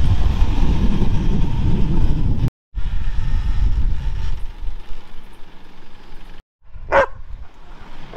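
Low rumbling noise of a moving vehicle, broken off abruptly twice, then a single short dog bark near the end.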